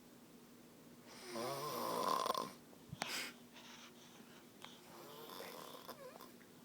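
A woman snoring in her sleep: one loud, rasping snore about a second in that lasts about a second, then a softer breath a few seconds later. A sharp click comes near the middle.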